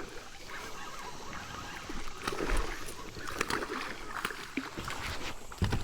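Water splashing and sloshing around a kayak, with scattered small clicks and knocks, busier from about two seconds in, and a louder knock just before the end.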